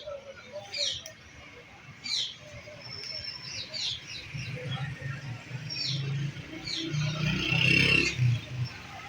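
Small caged birds chirping, a run of short, high, falling chirps repeated about once or twice a second. A louder low background sound swells in the second half, loudest near the end.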